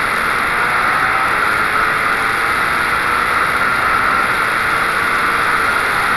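Onboard sound of a Wolf GB08 Honda sports prototype at speed on a straight: the engine note climbs slowly under a heavy, steady rush of wind over the open cockpit.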